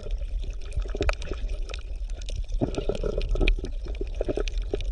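Water moving and splashing, with many irregular small pops and a steady low rumble underneath, typical of fish-tank water.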